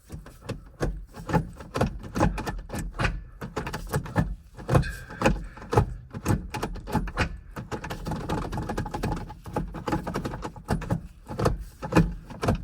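Gear lever on a newly fitted cable-shift linkage being worked back and forth through the gears: a steady run of irregular clicks and clunks, several a second.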